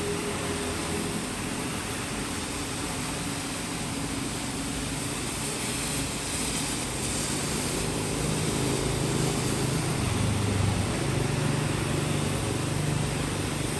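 Steady city rain, an even hiss, with the low hum of vehicle engines underneath that grows louder in the second half.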